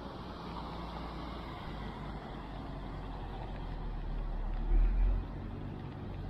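Steady low rumble of outdoor background noise, with a brief, heavier low buffet about five seconds in.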